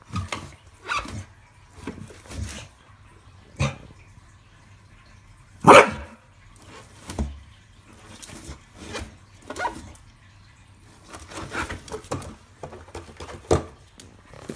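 A dog playing with a balloon, nosing and mouthing it, gives a string of short, separate bark-like sounds, roughly one a second. The loudest comes about six seconds in.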